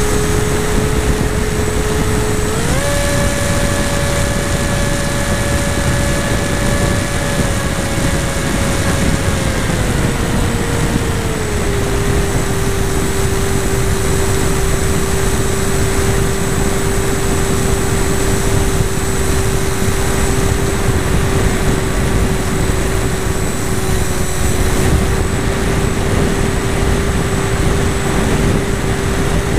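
A model airplane's motor and propeller running in flight, recorded on board as a steady drone over heavy rushing wind noise. The pitch steps up about two and a half seconds in as the throttle is raised, then eases back down in stages by about twelve seconds in and holds steady.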